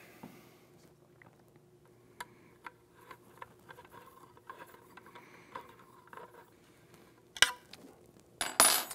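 Allen key turning the buttstock retainer screw inside the VR80 shotgun's stock tube: faint small ticks and scrapes of metal in plastic, then a sharp click about seven seconds in and a short clatter near the end.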